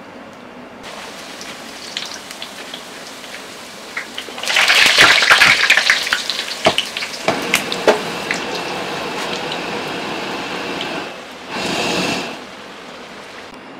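Chola poori dough deep-frying in hot oil. At first there is a quieter sizzle. About four and a half seconds in, a fresh round goes into the oil and the oil bursts into loud, crackling sizzling, which settles to a steady sizzle. A second short surge of sizzling comes near the end.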